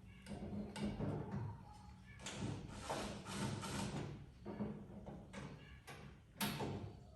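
Sheet-metal smoker panels and hardware being handled during assembly: irregular scrapes, rattles and knocks of metal parts, with a sharper knock near the end.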